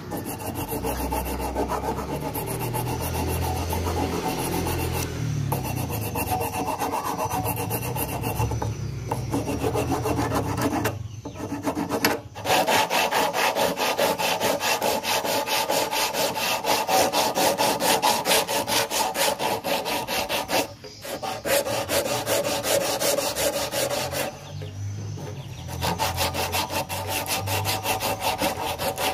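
Sandpaper rubbing back and forth on a wooden slingshot fork clamped in a vise, in repeated scraping strokes. About a third of the way in the strokes become quicker and louder, with a few short pauses between bouts.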